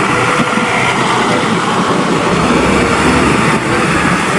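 Loud, steady vehicle engine noise with a deep rumble, like a bus running.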